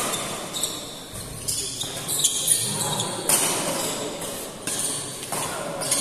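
Badminton rally: rackets striking the shuttlecock in a quick back-and-forth, sharp hits every half second to a second, over the chatter of spectators.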